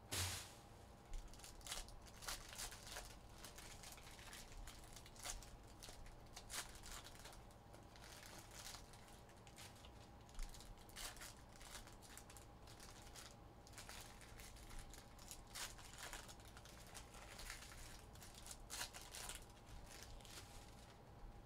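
Quiet handling of Prizm Draft Picks baseball card packs and cards: foil wrappers crinkling and cards rustling, sliding and tapping against each other, in a string of short rustles. The sharpest rustle comes right at the start.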